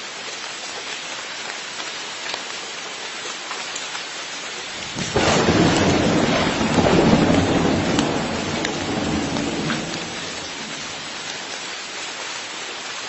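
Steady rain with a roll of thunder that breaks in about five seconds in, rumbles for several seconds and dies away back into the rain.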